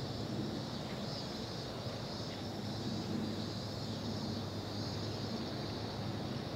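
Steady summer field ambience: a constant high-pitched insect drone over a low, steady hum of distant traffic.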